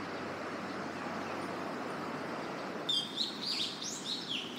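A bird calling a quick run of short, high, downward-sweeping chirps, starting about three seconds in, over a steady background noise.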